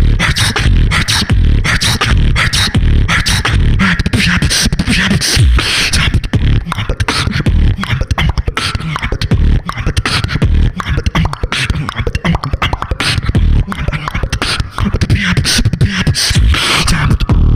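Solo beatboxing into a handheld microphone: a dense, unbroken run of mouth-made percussive sounds over a strong bass.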